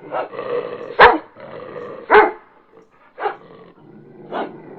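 A dog barking: four separate barks about a second apart.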